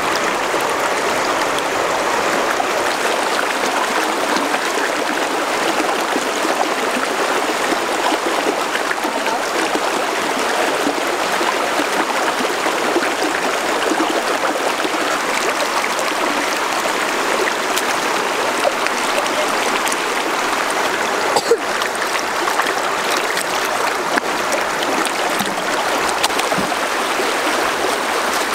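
Shallow river running fast over rocks, a steady rush of water, with hands splashing as they scrub beef intestine and tripe in the current. A single brief knock about three quarters of the way through.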